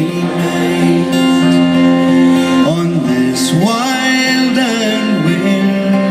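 Live folk song: acoustic guitar strummed with singing voices carrying a slow melody.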